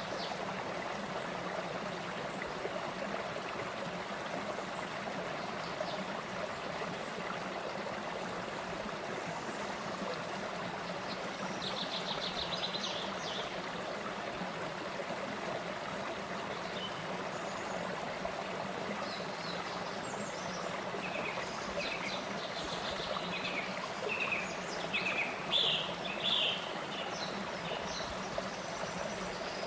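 Shallow rocky stream running over small ledges and cascades in a steady wash of water. Small birds chirp over it: a short trill about halfway, then scattered chirps that grow more frequent near the end.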